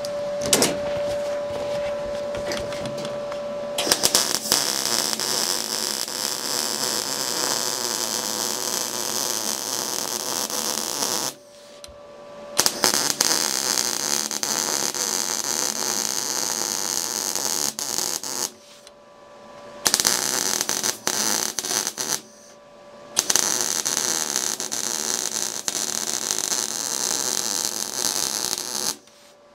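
MIG welder arc crackling steadily while welding sheet-steel seams, starting about four seconds in. It runs in four welds with short pauses between them.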